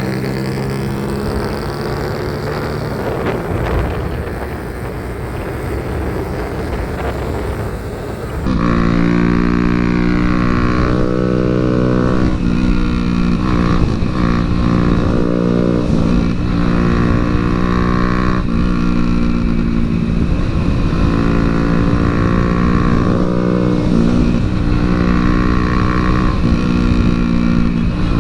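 Sport motorcycle engine running hard at speed. About eight seconds in it turns abruptly louder, and from then on the revs repeatedly climb and drop as the bike accelerates and shifts up through the gears.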